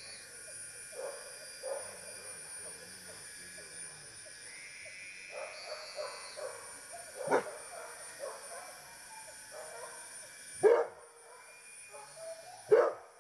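Hunting dogs barking: a few short sharp barks, the three loudest about seven, eleven and thirteen seconds in, with fainter yips between.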